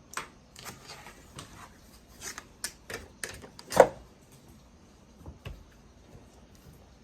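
Quilting fabric and cutting tools being handled while subcutting strips: a string of short, irregular rustles and taps, the loudest about four seconds in.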